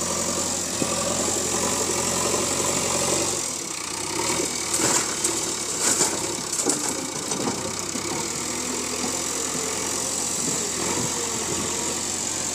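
JCB 3DX backhoe loader's diesel engine running steadily. About five to seven seconds in, a loud irregular clatter and rush of noise comes as its front bucket tips a load of soil into a tractor trailer.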